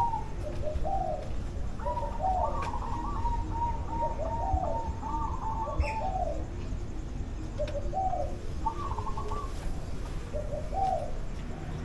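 Caged birds calling in short warbled phrases that repeat one after another, with gaps of about a second, over a steady low background rumble.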